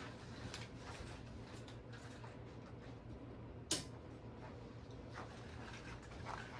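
A single sharp click of a circuit breaker being switched back on, about three and a half seconds in, over a faint low hum and small room noises.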